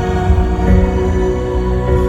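Music with no singing: sustained chords over a deep bass, the chord changing about two-thirds of a second in.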